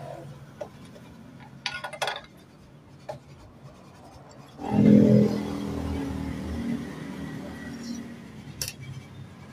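Metal tools and steering parts clinking sharply a few times during motorcycle steering-head bearing work. About halfway through comes a louder low-pitched sound that starts suddenly and fades away over a few seconds.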